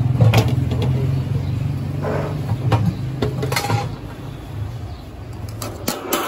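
A steady low mechanical hum with several short metal clinks and scrapes on top. The clinks come from a steel plate lid lying on the rice in a large steel cooking pot, which is scraped and lifted off with a ladle near the end. The hum drops in level about four seconds in.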